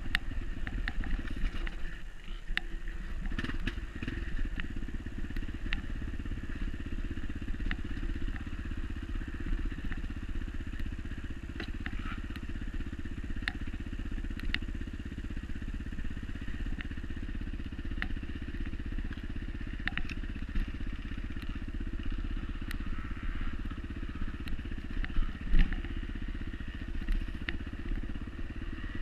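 Dirt bike engine running steadily while riding a trail, with scattered clicks and knocks over it and one sharper knock near the end.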